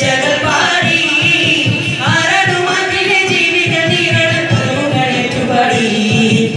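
A group of boys singing a song together through microphones and a PA, without a pause.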